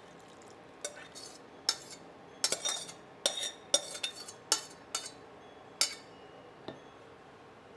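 Metal spoon clinking and scraping against a metal pot about once a second while soy-sauce marinade is scraped out of it into a bowl of eggs.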